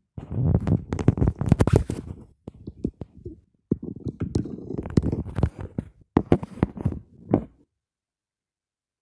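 Two springbok rams sparring: repeated sharp clacks of clashing horns and scuffling hooves in dry dust, over irregular low rumbling.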